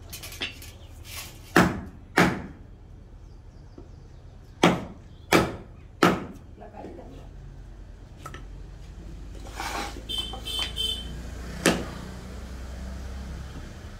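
Hammer striking a wood chisel as it cuts into a piece of wood: about eight sharp, separate blows at uneven intervals, with a few lighter taps about ten seconds in.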